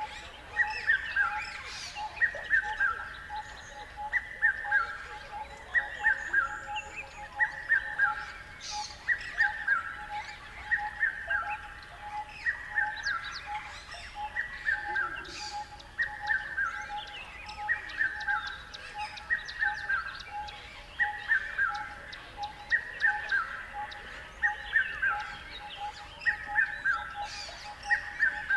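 Songbirds chirping: a short phrase of two or three falling notes repeated about once a second, over a fast, steady lower-pitched trill.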